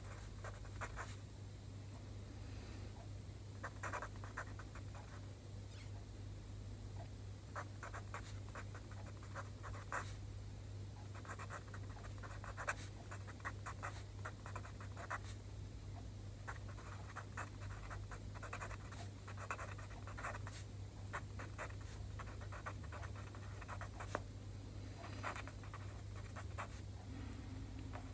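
Pen tip scratching on paper as Chinese characters are handwritten, in quick runs of short strokes with brief pauses between them, over a steady low hum.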